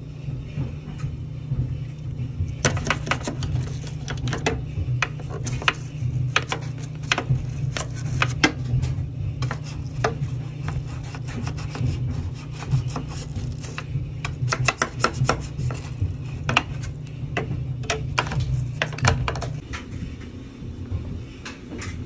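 Small stiff-bristled utility brush scrubbing and scraping around the plastic detergent dispenser and crevices of a top-load washing machine, with irregular plastic clicks and knocks. A steady low hum runs underneath and drops away shortly before the end.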